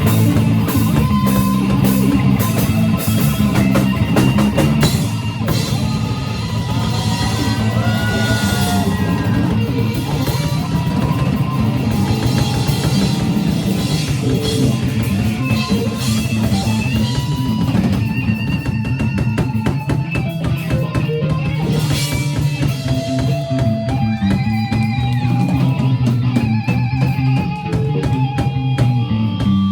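A live rock band playing a song, with a drum kit driving the beat under guitars and a melody line that bends in pitch.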